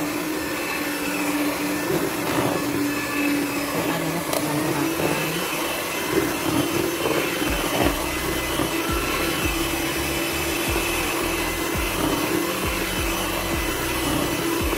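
Miyako electric hand mixer running steadily, its beaters whirring through thick cake batter as flour is beaten in, with a steady motor hum.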